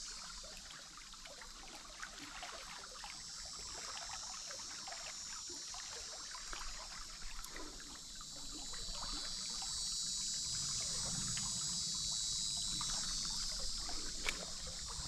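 Swamp ambience: a steady high insect drone over faint trickling water, with scattered small ticks and a sharp click about two seconds in and again near the end.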